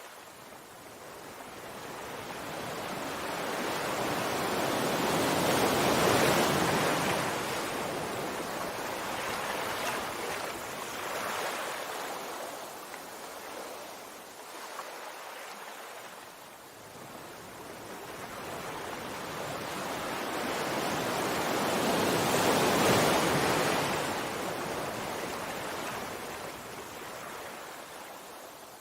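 Sea waves breaking and washing on the shore. The surf swells and fades slowly, with two large waves about seventeen seconds apart and a smaller one between them.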